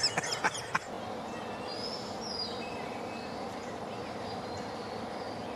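Steady outdoor background noise among palms and long grass, with a few faint high bird calls about two seconds in and a few short clicks near the start.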